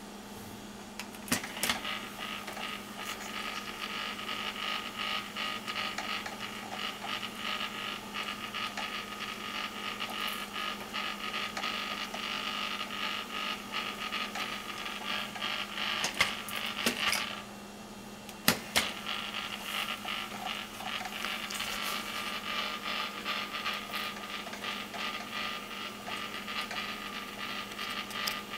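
Plastic fridge-magnet gears turning, their teeth meshing in a fast, continuous clicking grind, with a steady low hum underneath. The grinding stops briefly a little over halfway through, with a few sharper knocks around the pause, then carries on.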